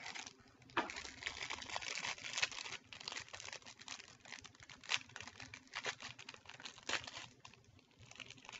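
Trading card pack wrapper being torn open and crinkled by hand, a dense run of crackles and sharp crinkles that dies down about seven and a half seconds in.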